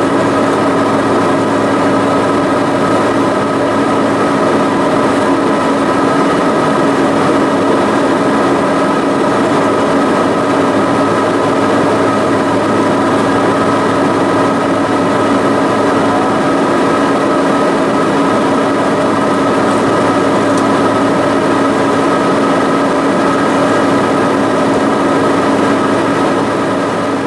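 Steady cabin noise inside an Embraer E175 jet in flight: the drone of its GE CF34-8E turbofan engines and the rush of air, with a constant hum of several tones.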